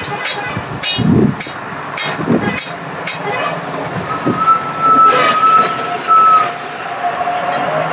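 A run of sharp taps, about two a second, for the first three seconds. Then a vehicle sound with a steady high whine that starts about four seconds in and lasts about two and a half seconds.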